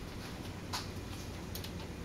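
A few light clicks over a steady low hum: one sharper click just under a second in, then a small cluster of ticks near the end.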